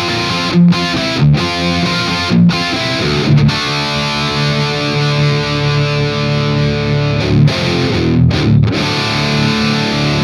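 Distorted electric guitar through the lead channel of a Marshall Silver Jubilee 2555X 100 W reissue head, with no pedal in front: chords chopped with short breaks, then a long held chord, a few more stabs, and the playing cuts off suddenly at the very end.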